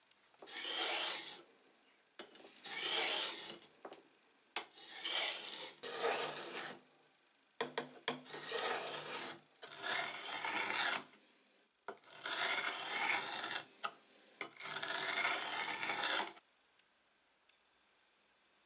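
Wet sharpening stone rubbed back and forth along the steel blade of an antique drawknife, honing the edge. About eight strokes, each a second or two long with short pauses between them, then it stops near the end.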